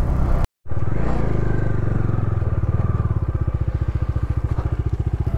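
Bajaj Dominar 250's single-cylinder engine running at low, steady revs, a fast even pulse of firing strokes. The sound cuts out for a moment about half a second in.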